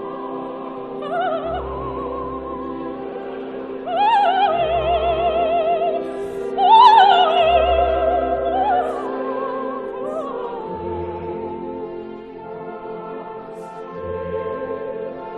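Opera music: a singer holding high notes with a wide vibrato over a sustained orchestral accompaniment. The loudest sung phrase comes about seven seconds in.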